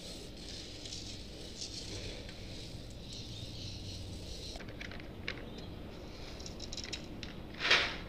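Roasted coffee beans pouring off a metal spoon and pattering into a stainless steel colander of beans, then scattered clicks as single beans drop and knock. A louder, brief burst of noise near the end.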